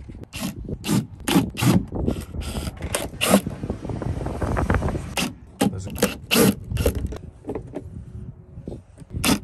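Hard plastic trim parts of a truck console being handled and pried apart: a string of sharp clicks and knocks, with a stretch of scraping near the middle.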